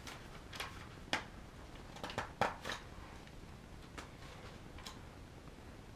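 Scattered light clicks and taps from hands handling small objects, about ten spread irregularly over the few seconds.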